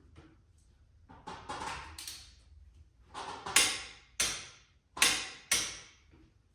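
Metal hand tools being handled while bolting brake rotors onto a motorcycle wheel. Some rattling and shuffling comes first, then four sharp metallic clacks in quick succession, each ringing briefly.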